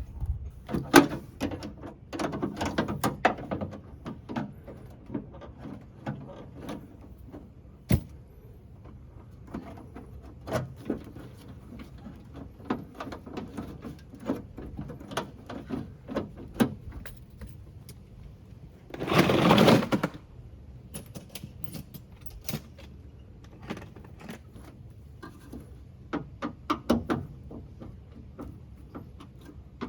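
Scattered clicks, knocks and light metallic rattles of hand work on a stuck rear door latch of a Mitsubishi Pajero Mini, with one louder rattling burst lasting about a second and a half past the middle.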